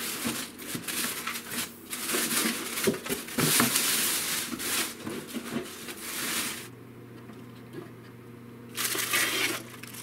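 Plastic wrap crinkling and foam packaging scraping as a new toaster oven is unpacked, in dense bursts for the first six or so seconds. Then it goes quieter, with a low steady hum and one more short rustle about nine seconds in.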